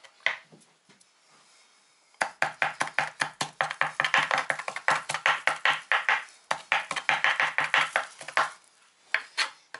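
Kitchen knife chopping fresh dill on a wooden cutting board: after a quiet first couple of seconds, a quick run of sharp chops, about six a second, with a brief pause, and a few last chops near the end.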